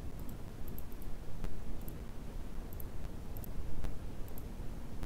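Computer mouse clicking several times, short faint paired clicks, over a steady low background noise.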